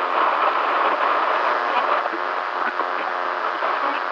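Weak-signal radio broadcast: dense static hiss and crackle, thin and band-limited, with a faint, garbled newsreader's voice breaking through the interference.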